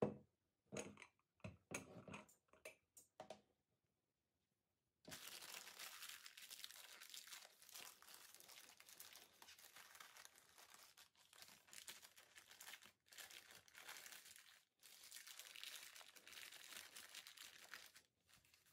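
A few light knocks as the jars are picked up and set down on the tabletop, then a long stretch of crinkling and rustling plastic as a bag of cotton swabs is opened and handled, with two short breaks.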